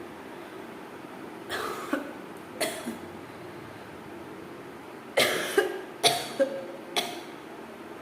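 A person coughing deliberately for a coughing challenge: two single coughs in the first few seconds, then a quicker run of four coughs about five seconds in.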